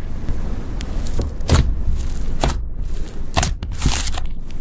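Blue makeup slime being squeezed and poked by hand, giving wet squishing with a few irregular crackly pops and clicks, about six in all.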